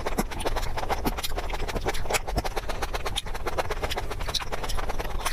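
Close-miked chewing of soft food: a dense, irregular run of wet mouth clicks and smacks.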